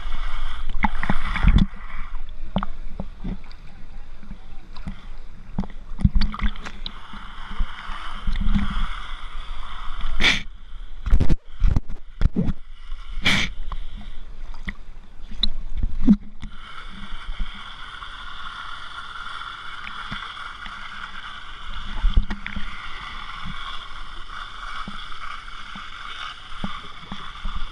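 Pool water sloshing and splashing right at a waterproof action camera held at the surface, with a cluster of sharp splashes about halfway through and a steadier rush of churning water in the second half.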